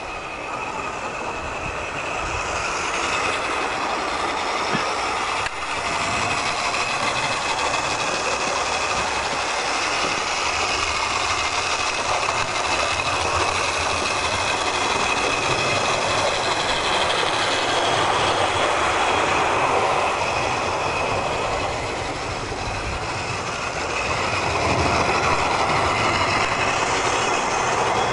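An electric tinplate O gauge LMS tank locomotive and its six-wheeled coaches running on nickel silver track, with a steady rattling, whirring run. It grows louder over the first few seconds, dips briefly, then swells again as the train circles the layout.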